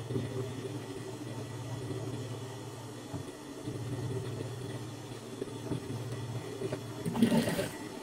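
Industrial sewing machine's motor humming steadily, dropping out briefly twice, with a short louder rustle-like sound near the end.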